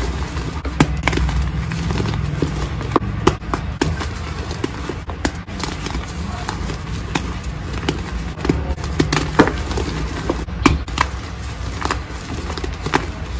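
Reformed gym chalk crushed and squeezed in bare hands: irregular crunching and crackling as the blocks crumble to powder, with a few sharper snaps.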